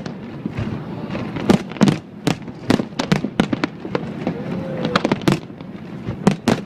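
Aerial fireworks display: a rapid, irregular run of sharp bangs and crackles, several a second.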